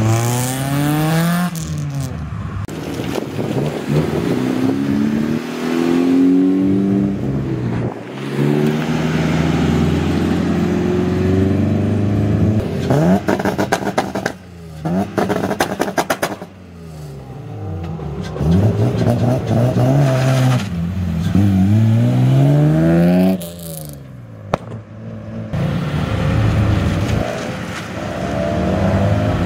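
Several cars leaving one after another, each engine revving up in pitch as it accelerates, then dropping as it shifts gear or passes, with exhaust noise loud throughout.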